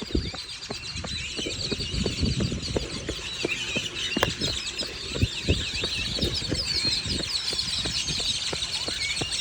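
A dense chorus of many small birds chirping and chattering all at once, a loud wall of overlapping calls. Low dull thuds repeat a few times a second underneath.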